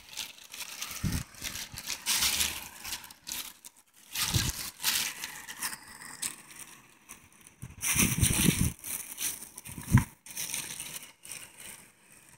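Irregular crunching footsteps on gritty rock and loose stone, with a few low thumps.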